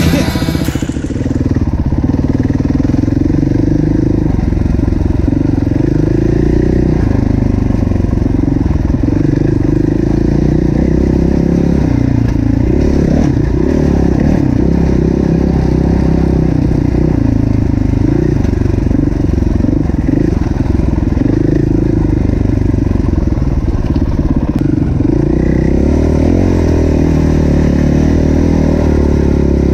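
Four-stroke single-cylinder engine of a KTM EXC-F enduro dirt bike, loud and up close, revving up and down constantly as the throttle is opened and closed while riding.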